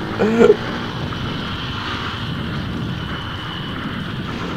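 Small motorcycle running steadily at cruising speed with wind rushing over the camera, heard from the rider's seat. A brief call sounds right at the start.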